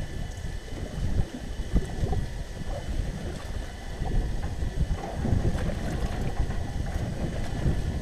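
Wind buffeting the microphone in gusts, with choppy lake water slapping the hull of a small aluminium boat, and a faint steady high whine underneath.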